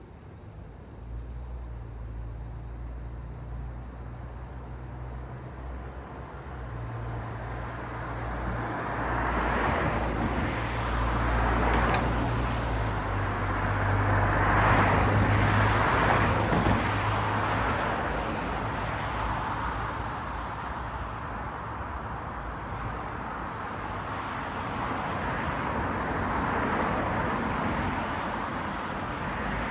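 Road traffic: cars passing one after another, their tyre noise swelling and fading, over a steady low engine hum. A short sharp click comes about twelve seconds in.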